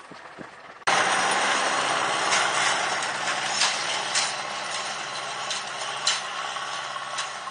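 Zetor tractor's diesel engine running steadily as it pulls a spike-tooth harrow across ploughed soil, mixed with the harrow's metal clanking and rattling over the clods. It is quieter at first and turns loud about a second in.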